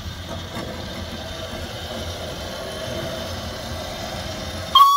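Narrow-gauge steam locomotive Melior standing in steam, a steady rumble and hiss; near the end its steam whistle sounds a sudden loud, high, single-pitched blast.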